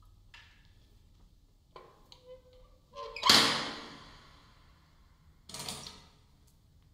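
A wooden chair with metal legs set down hard on a concrete floor: one loud knock about three seconds in that echoes and dies away over about a second, then a second, shorter noise about two and a half seconds later.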